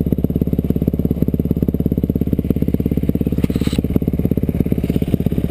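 Motorcycle engine idling steadily with an even, unchanging beat. A brief hiss comes in about three and a half seconds in.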